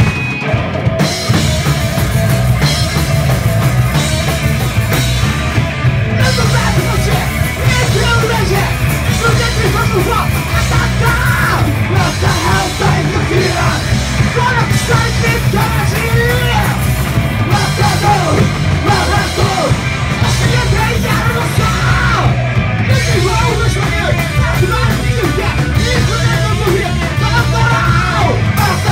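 Live punk rock band playing loud, with electric guitars, bass and drums under a singer yelling into a microphone. The full band comes in right at the start, after a held guitar note.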